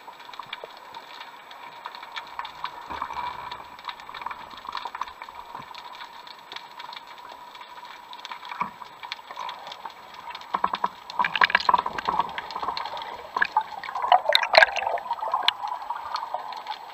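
Underwater sound heard through a diving camera's housing: a steady water hiss with scattered sharp clicks and crackles, and louder bursts of crackling and gurgling about eleven and fourteen seconds in.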